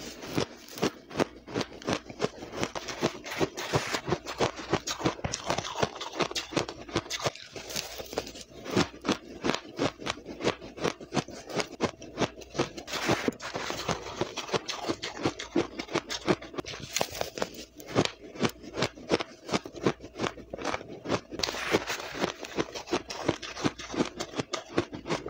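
Finely blended pink ice being crunched and chewed fast, a dense run of crisp crunches several times a second without a break, mixed with the spoon scraping through the ice in the plastic pot.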